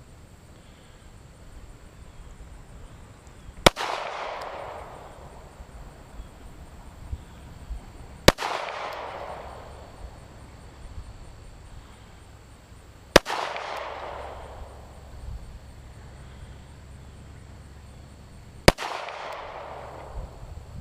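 Four handgun shots fired slowly, about four to five seconds apart, each a sharp crack followed by a fading echo.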